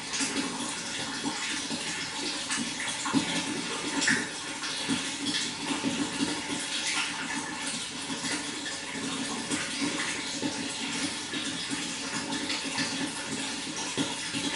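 Flowing water: a steady, continuous rush with small irregular splashes.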